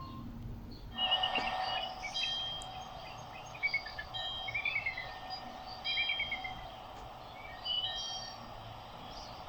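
Samsung Galaxy Xcover2 nature-sound ringtone: recorded birds chirping and trilling over a steady background hiss. It starts about a second in and cuts off abruptly at the end.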